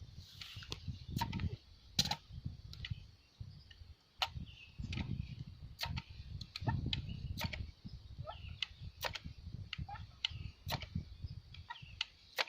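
Irregular sharp clicks, roughly one a second, with faint short bird chirps among them, over a low rumble.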